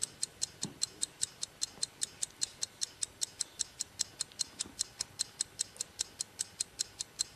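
Ticking-clock sound effect: even, sharp ticks a few times a second, the countdown cue that time in the phone-in game is running out.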